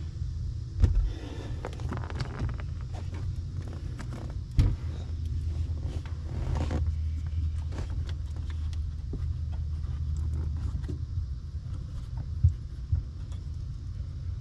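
Handwork on plastic vacuum line and gauge fittings: scattered clicks, knocks and rustling, the sharpest knocks about a second in, near the middle and near the end. Under them runs a steady low rumble.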